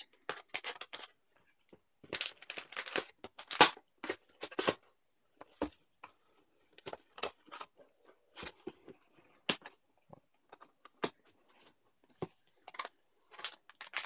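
Cardboard motherboard box and plastic packaging being handled: irregular crinkling, rustling and sharp taps as the contents are lifted out and the box lid is closed.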